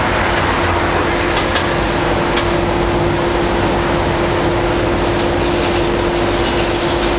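Hitachi ZX650 demolition excavator running steadily under load with a constant whine, while its attachment works the concrete and gives a few faint cracks of breaking debris.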